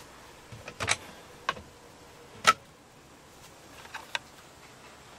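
A few short clicks and knocks, the loudest about halfway through, as a wooden cabin cabinet door with a chrome push-button latch is unlatched and swung open.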